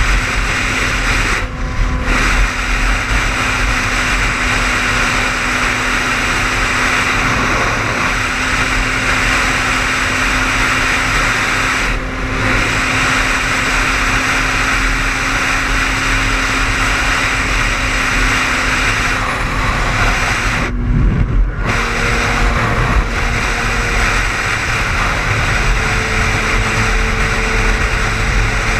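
Car driving at highway speed, with steady tyre and road noise and a low rumble. A steady engine hum runs underneath and shifts higher about two-thirds of the way through.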